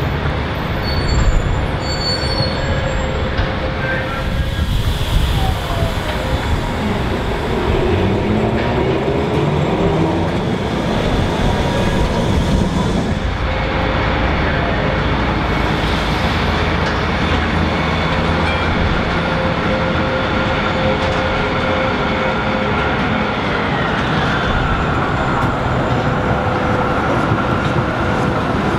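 Melbourne electric trams on street track. First a tram's motor whine rises in pitch as it pulls away. After a change of scene, another tram runs by close with a steady motor whine and rolling wheel-on-rail noise, and one whine tone drops in pitch near the end.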